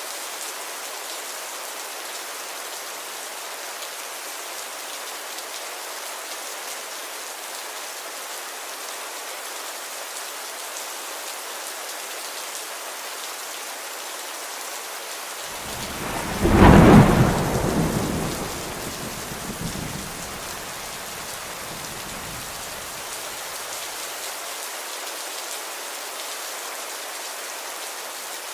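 Steady rain falling, with one crack of thunder a little past halfway that rumbles away over several seconds.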